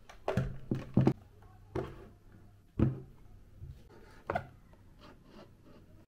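Objects being picked up and set down on a wooden desk while it is tidied: a series of separate knocks and clunks, several in the first half, the loudest about a second in and just under three seconds in.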